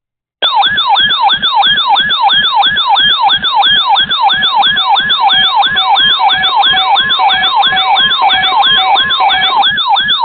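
Electronic siren-style alert tone, starting suddenly about half a second in: a loud pitch that sweeps down and snaps back up about two and a half times a second, with a steadier lower tone joining partway through.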